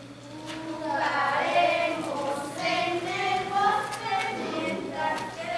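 A group of children singing together, the voices coming in about a second in.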